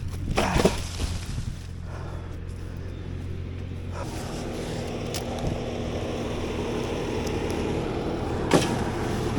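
Skid steer's diesel engine running steadily; its note shifts and grows busier about four seconds in, as it works under load. Sharp knocks come near the start and again near the end.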